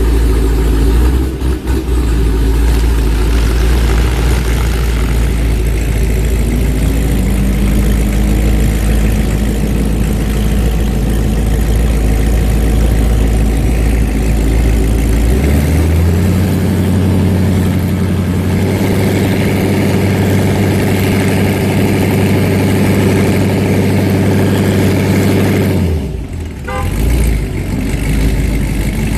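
CSV CR8's 6.2-litre LS3 V8, breathing through Kooks headers and a Magnaflow 3-inch exhaust, idling and creeping at low revs. About halfway through, the revs are raised and held steady for about ten seconds, then drop back to idle.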